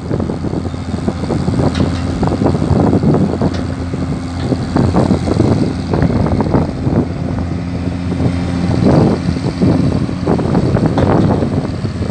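Diesel engine of a Tata Hitachi EX110 long-reach excavator running steadily with a low hum while the machine works, lifting its bucket from the canal and swinging it to the bank. An uneven rushing noise lies over the engine.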